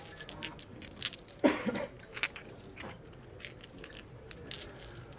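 Handling noise from a homemade wire loop antenna of enamelled copper wire being picked up and gathered: scattered clicks, rustles and crackles, the loudest about one and a half seconds in.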